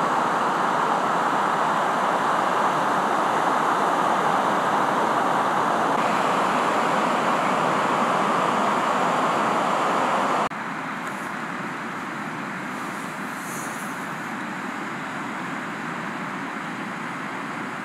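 Steady rushing noise of waves breaking on a beach, dropping abruptly to a quieter, thinner wash of surf about ten seconds in.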